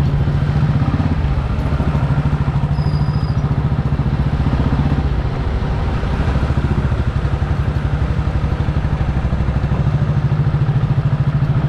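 A small motorcycle or scooter engine running steadily under the rider, pulsing evenly at low speed, with road and traffic noise around it.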